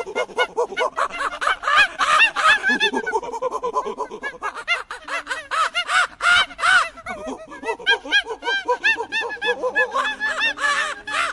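A troop of monkeys chattering and screeching: many short, harsh, rising-and-falling calls overlapping in quick succession, with no break.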